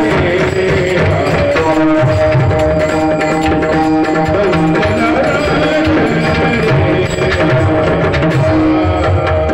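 Live Marathi kirtan music: a held melody line with long sustained notes over a steady hand-drum rhythm.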